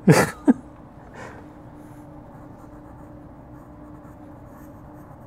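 Graphite pencil scratching and shading on sketchbook paper, a Palomino Blackwing, over a faint steady hum. A brief voice sound comes right at the start.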